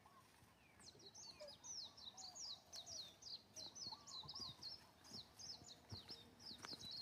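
Bird song: a long, rapid series of high, downward-slurred notes, about five a second, starting about a second in, with softer, lower chirps from other birds mixed in.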